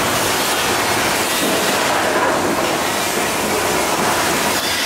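Steady, loud rumbling and hissing from a theme-park earthquake attraction's mechanical special effects: the simulated quake shaking the set, with steam jets going off.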